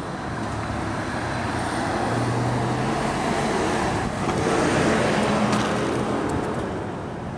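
Road traffic: a motor vehicle passes on the street, its engine and tyre noise growing louder to a peak about five seconds in, then fading.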